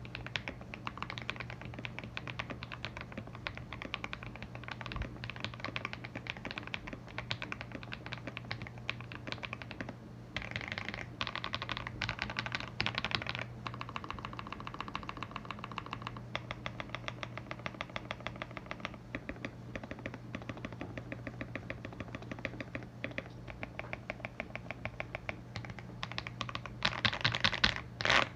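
Continuous typing on a KBD67 Lite R3 mechanical keyboard with lubed Akko Lavender Purple tactile switches, PE foam between plate and PCB and the stock case foam removed: a steady patter of keystrokes, with a faster, louder flurry about eleven to thirteen seconds in and heavier strokes near the end. A low steady hum lies underneath.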